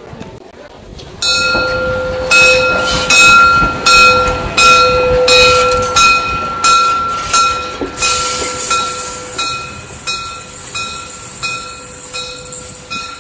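Train on the move: a steady high tone held throughout over a regular clack about every half second, starting suddenly about a second in, loudest in the first half, then fading as the beats come slightly faster.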